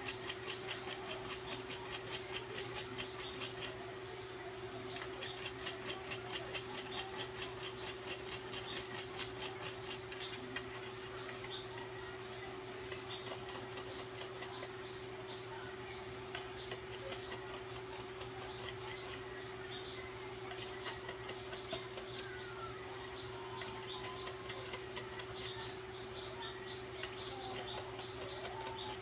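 Small brush scrubbing a watch movement part held in tweezers in a tin of cleaning fluid: quick, regular scratchy strokes, several a second, for about the first ten seconds, then fainter and more irregular, over a steady electrical hum.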